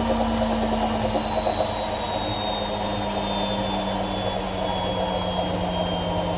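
AEG washing machine drum spinning with its motor whine, the pitch slowly falling as the spin slows, over a fast rattle from the machine.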